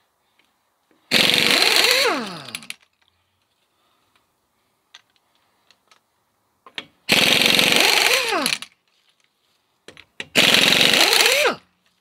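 Pneumatic impact wrench rattling lug nuts loose on a truck wheel in three short bursts, each about a second and a half long, its pitch sliding down as the trigger is released.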